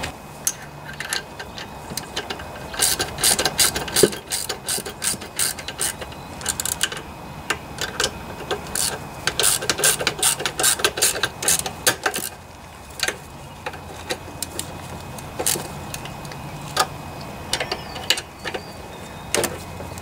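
Socket ratchet clicking in quick runs as the bolts holding a Briggs & Stratton lawnmower carburetor to the engine are tightened. The clicks are busiest in the first half and sparser after that.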